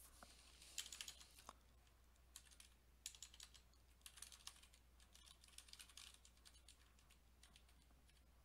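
Faint computer keyboard typing: short runs of quick keystrokes with pauses between them.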